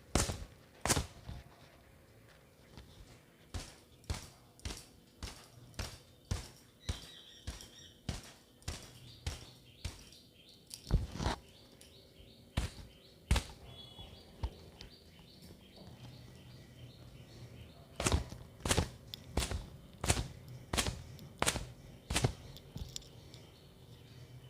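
Wet hair being slapped dry with a towel: a run of sharp slaps, a little under two a second, breaking off for a few seconds past the middle and then starting again. Faint bird chirps behind.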